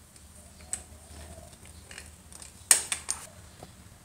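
Rusty 1940s Miller Falls two-speed hand drill being handled with its crank turned: sharp metal clicks and clunks from the crank and gears. One comes about a second in, then a quick run of three a little past halfway.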